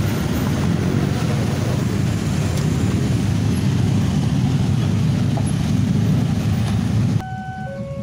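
Loud, steady rumbling of road traffic at a railway level crossing. A little after seven seconds it cuts off abruptly to a quieter scene where steady electronic tones sound, stepping between pitches.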